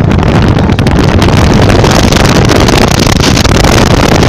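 Loud wind rush and buffeting on the microphone inside a moving car, over the low rumble of the car on the road.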